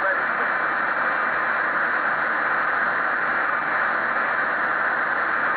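Steady, even hiss of in-flight cockpit background noise on the cockpit voice recorders of a Tupolev Tu-154 and a Boeing 757, muffled, with no treble.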